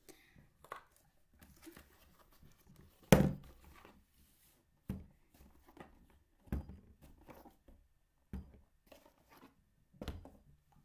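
Plastic Elmer's glue bottles being set down one after another on a tabletop: six knocks about a second and a half to two seconds apart, the loudest about three seconds in. Faint rustling of a cardboard box comes between them.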